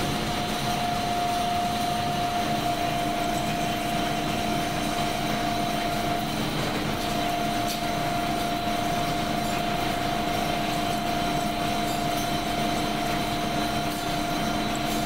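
Factory machinery running steadily: an even noise with a constant whine, and a lower hum that joins about two and a half seconds in.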